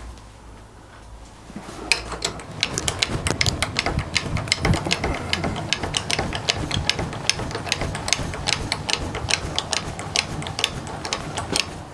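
Rapid, irregular metallic clicking from the milling machine as the casting and tap are brought together, starting about two seconds in, over a low steady hum.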